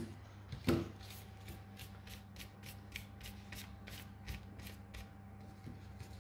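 Scissors snipping through macramé cotton cord fringe to cut out a leaf shape: a steady run of short crisp cuts, about three a second. A single thump about a second in is the loudest sound.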